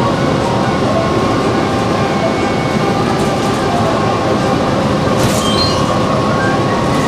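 Interior of a transit bus in motion: a steady, loud rumble of engine and road noise, with the cabin rattling on a bumpy ride. A short high squeak sounds about five seconds in.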